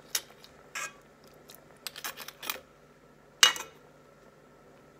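Metal spoon clinking and knocking against a stainless steel pot while stirring crab pieces in curry: a handful of short sharp clinks, the loudest about three and a half seconds in.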